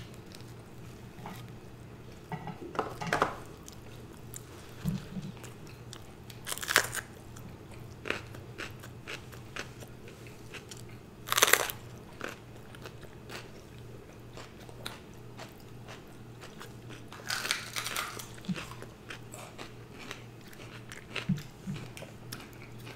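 Close-miked eating: a person biting and chewing food, with scattered crunchy bites, the loudest about eleven seconds in. A faint steady low hum runs underneath.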